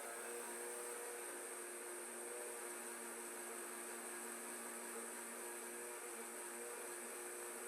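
Countertop blender running at a steady speed, blending the liquid ingredients for a bread batter: an even motor hum with a high hiss over it.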